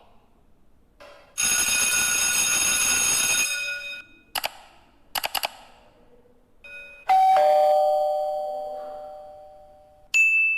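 A string of separate sound effects. First a bright, steady ringing tone lasts about two seconds and cuts off. A few quick clicks follow. Then a two-note chime, high then low, rings out and fades over about three seconds, and a short high ding comes near the end.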